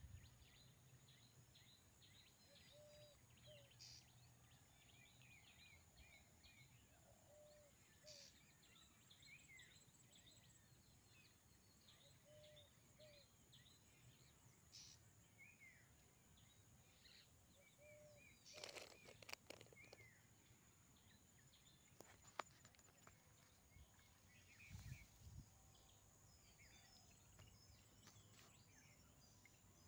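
Near silence of a rural pond bank: faint scattered bird chirps and calls over a steady thin high hum, with a brief rustle about two-thirds of the way through.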